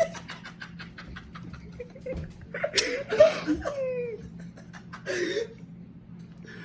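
A quick run of light clicks and taps, then a man laughing in short bursts.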